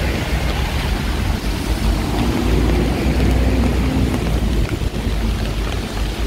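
Heavy rain falling on a city street, with a steady low rumble of traffic; a vehicle's engine hum swells in the middle.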